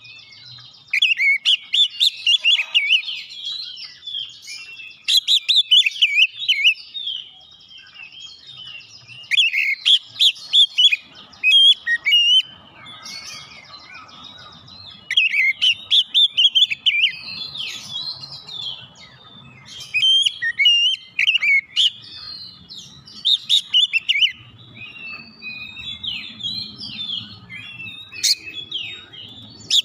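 Oriental magpie-robin singing: rapid phrases of varied whistles and chirps, each lasting a second or two, with short pauses between them.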